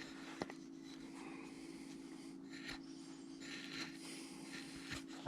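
V-tool cutting wood by hand, faint short scraping strokes with a few small clicks, over a steady low hum.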